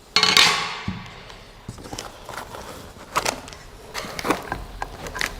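Packaging being handled while a 3D printer is unpacked: a loud rustling scrape just after the start that fades over about half a second, followed by scattered knocks, clicks and rustles.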